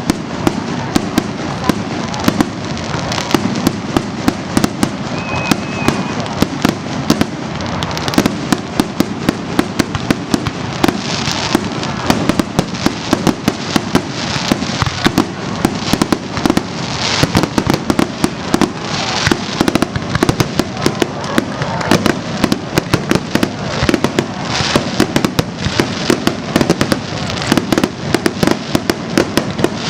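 Fireworks display in a dense, continuous barrage: rapid bangs several a second over steady crackling.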